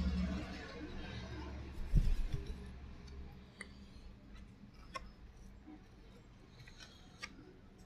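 A few sparse, faint clicks and one knock about two seconds in, over a low hum that fades out in the first few seconds.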